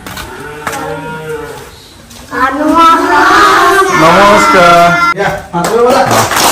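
A group of children's voices calling out together in a drawn-out chorus, as a greeting, starting about two seconds in and loud.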